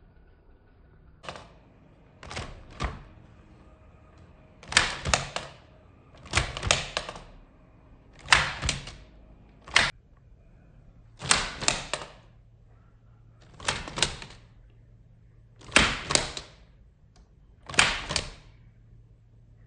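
Typing on a ROKR Vintage Typewriter wooden model kit: sharp clacks of keys and typebars striking, coming in small bunches of several strokes about every two seconds.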